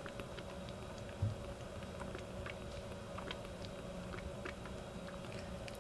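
Kitten suckling milk from a bottle nipple, a run of small wet clicks and smacks, with one soft low bump about a second in.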